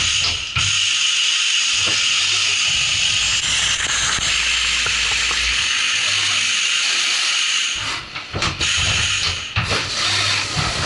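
Flood coolant spraying and splashing inside a Haas VF-4 CNC mill's enclosure during a drilling cut with a 25 mm U-drill at 3500 rpm: a steady hiss that dips briefly twice near the end.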